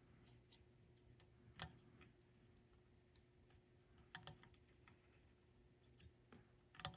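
Near silence with three faint, sharp clicks spaced a couple of seconds apart: small taps of a soldering iron and solder against a circuit board as the joints are soldered.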